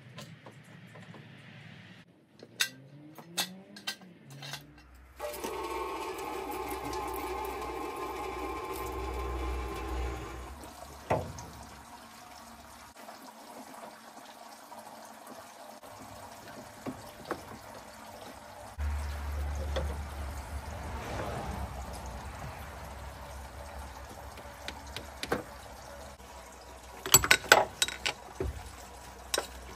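Liquid pouring steadily for about five seconds, then trickling on more quietly, with scattered sharp clicks and a quick run of knocks near the end.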